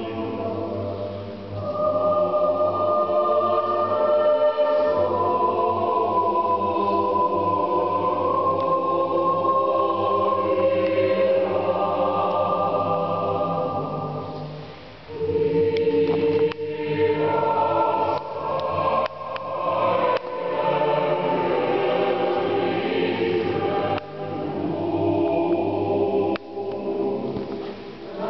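A mixed choir of men's and women's voices singing in a vaulted stone chapter house, holding long chords. About fifteen seconds in the sound dies away briefly, then the choir comes back in with shorter phrases.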